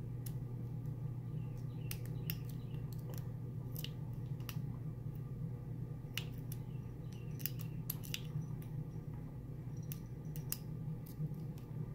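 Lock pick and tension wrench working the pins of a Master Lock lockout padlock: irregular small metallic clicks and scrapes as pins are probed and set during single-pin picking. A steady low hum runs underneath.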